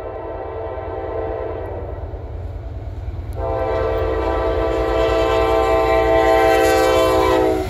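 Freight locomotive air horn on an approaching CSX intermodal train. A horn note fades out over the first couple of seconds, then a long, loud blast starts about three and a half seconds in and cuts off sharply just before the end. Underneath is the low rumble of the approaching diesel locomotives.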